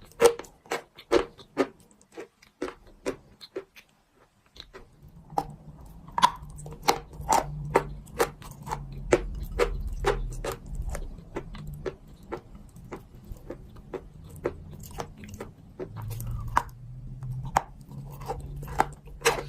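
Dry soft clay crunching in a long run of short, sharp crunches, one or two a second, with a lull about two to four seconds in. A low steady hum runs under the crunches from about four and a half seconds on.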